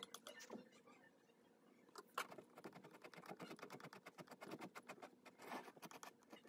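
Faint crackling fizz of baking soda reacting with vinegar in a glass: a rapid, irregular patter of tiny pops that grows denser and louder about two seconds in.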